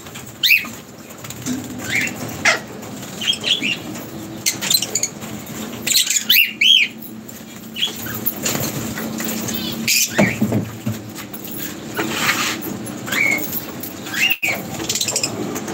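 Several lovebirds in an aviary making short, sharp chirps again and again, with wings flapping as they fly off the perch.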